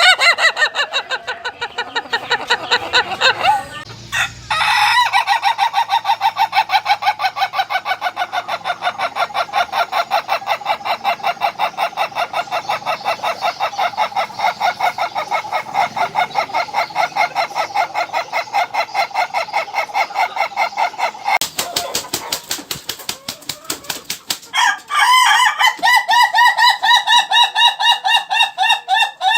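Ayam ketawa (laughing chicken) roosters crowing. Their long crows are made of rapid stuttering notes; one runs unbroken for about sixteen seconds. After a spell of rapid clicking noise, another crow starts near the end.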